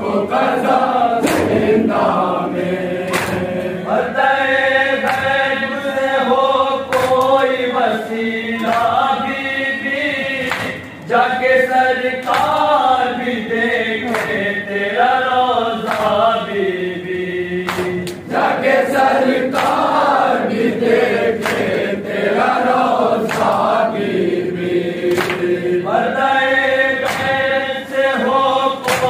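A group of men chanting a nauha, a mourning lament, in unison over a microphone. Sharp slaps of chest-beating (matam) keep the beat throughout. The chanting breaks off briefly about eleven seconds in.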